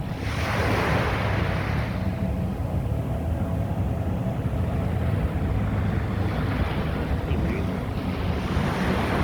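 Surf breaking on a sandy beach, a wash of waves that swells about half a second in, fades, and swells again near the end, over a steady low rumble of wind on the microphone.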